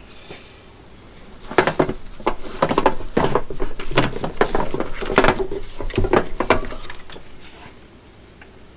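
Metal hardware of ratchet straps (ratchet buckles and hooks) clinking and clattering in quick irregular knocks while the straps are handled and packed into their storage bag, starting about a second and a half in and dying away near the end.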